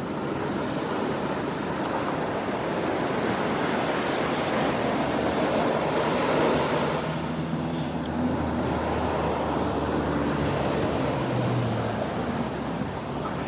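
Pacific Ocean surf washing in a steady rushing noise that swells around the middle, with a low droning hum coming in during the second half.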